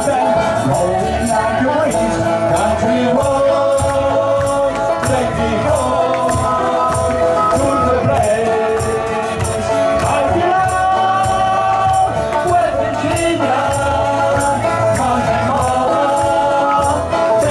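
Live bluegrass band playing fiddle, banjo, acoustic guitar and upright bass, with a male lead voice and harmony singing over a steady beat.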